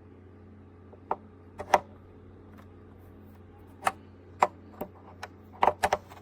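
A steady low hum with irregular sharp clicks and knocks over it, several coming close together near the end.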